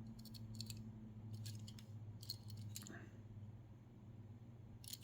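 Faint light clicks and taps in a few short clusters, as small die-cast metal toy vehicles are handled, over a steady low hum.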